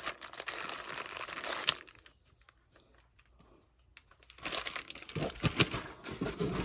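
Plastic packaging crinkling and rustling as items are handled, with small crackles and clicks. It stops for about two and a half seconds in the middle, then starts again.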